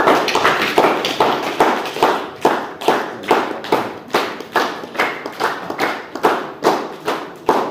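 Audience clapping together in a steady rhythm, a little more than two claps a second.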